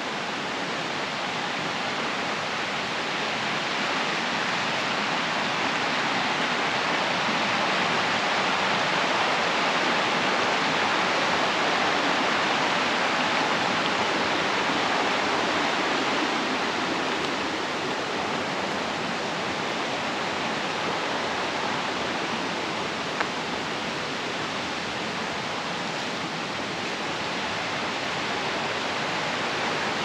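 Steady rush of a mountain waterfall, swelling a little and then easing off. A single short click about two-thirds of the way through.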